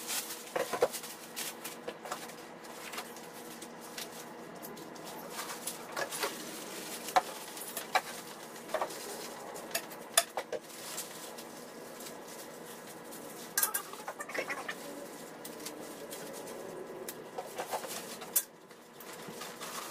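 Scattered clicks, knocks and rustles of packing being handled: bagged parts, styrofoam inserts and sheet-metal stand pieces lifted out of a saw's shipping box, with a few short squeaks.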